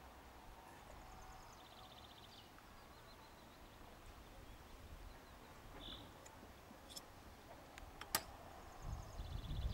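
Faint open-air ambience with distant birds trilling in short rapid runs, a few light clicks and one sharp click about eight seconds in, and a low rumble building near the end.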